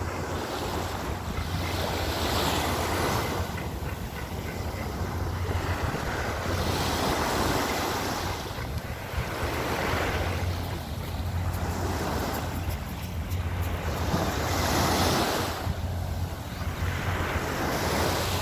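Small sea waves washing onto a sandy shore, the wash swelling and fading every two to three seconds, with a steady low rumble of wind on the microphone.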